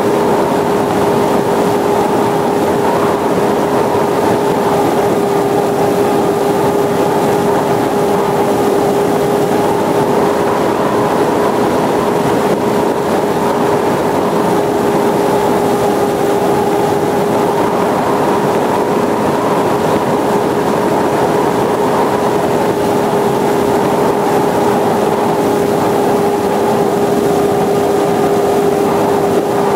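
Dynam Hawksky RC plane's electric motor and propeller running steadily in flight, a constant whine with a slight wavering in pitch over a rush of airflow, picked up by an iPod touch riding on the plane.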